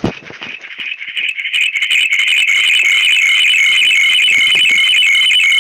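A loud, shrill high-pitched tone with a fast warble, building up over the first second or two and then held steady. It is made on purpose as an annoying noise.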